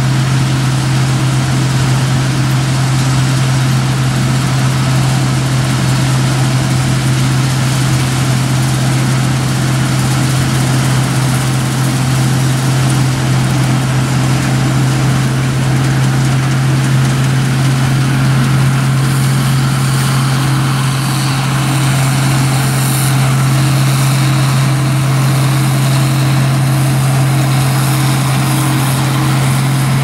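Case IH 1660 Axial-Flow combine, its six-cylinder turbo diesel held at steady governed speed, running while harvesting soybeans with a 20 ft 1020 header: an even machine drone with a strong low hum. More hiss and rattle from the machinery comes in over the second half as it nears.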